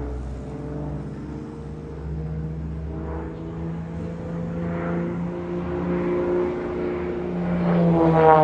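Engine and propeller of a single-engine aerobatic plane flying overhead, a steady drone with several pitched tones. Near the end the note rises in pitch and grows louder.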